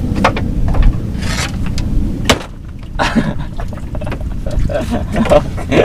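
A hooked fish splashing at the water's surface as it is played in, with several sharp splashes. Under them is a low steady rumble that drops away a little over two seconds in.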